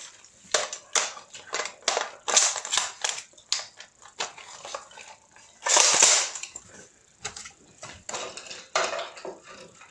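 Plastic airsoft gun being handled close to the microphone: a string of sharp clicks, knocks and rattles, with one louder rushing burst about six seconds in.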